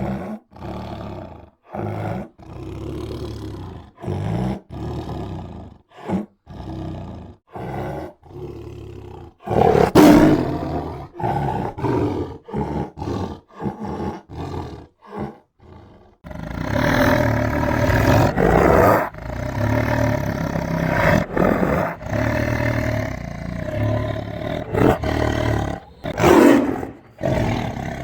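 Tiger roaring and growling. For the first half the calls come as short separate roars with brief gaps, the loudest about ten seconds in. From a little past halfway the roaring runs on without a break.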